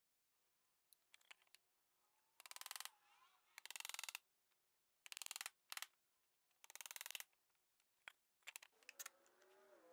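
Faint clicking and scraping of metal bar clamps being fitted and tightened on a glued-up wooden lid, in about five short bursts.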